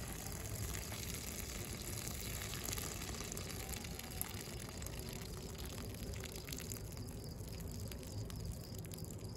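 Pot of pelmeni boiling: a steady bubbling, hissing water noise with fine crackles throughout.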